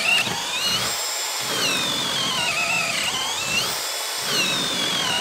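HILTI brushless cordless hammer drill boring through a wooden board with a large wood bit, running continuously. Its motor whine sags in pitch and climbs back several times as the bit loads up and frees in the wood.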